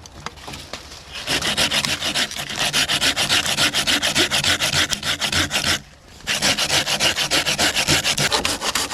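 Hand saw cutting through wood with rapid back-and-forth strokes, stopping briefly about six seconds in and then going on.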